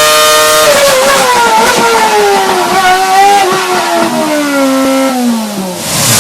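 Renault Formula One racing engine on test, held at high revs at first, then revs falling unevenly over about five seconds, its pitch sliding down to a low note near the end.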